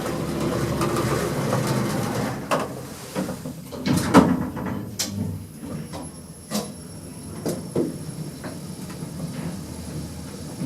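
KONE EcoDisc passenger lift running: a steady rushing noise for the first couple of seconds, then a lower steady hum broken by several knocks and clunks from the sliding car doors and car.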